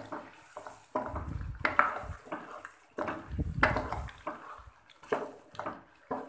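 Wooden spatula stirring and scraping thick beef liver curry in a nonstick wok. There are two longer stirring passes, then a few short knocks of the spatula against the pan near the end.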